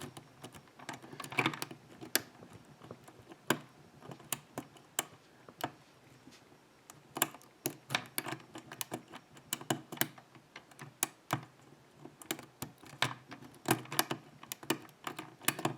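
Metal hook pick clicking against the pins inside a GeGe euro cylinder held under light turning tension: irregular small clicks, sparse at first and more frequent from about halfway in, as the springy pins are probed one by one.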